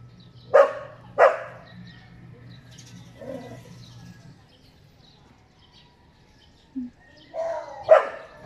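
A dog barking: two sharp barks in quick succession about half a second in, a softer one around three seconds, and two more near the end.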